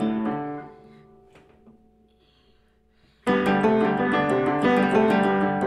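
Upright piano being played: the notes die away into a short pause of near silence, then just over three seconds in a loud passage of quick, evenly repeated notes starts abruptly.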